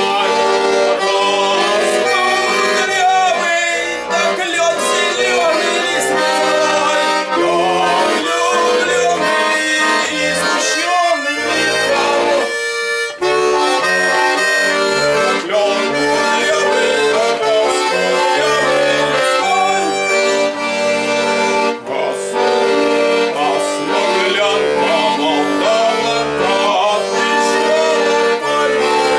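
Bayan (button accordion) playing a folk melody over a pulsing bass-and-chord accompaniment, with a brief break about thirteen seconds in.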